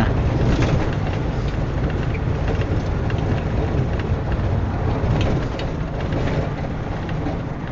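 Steady engine and road noise heard from inside a moving combi, a public-transport minibus.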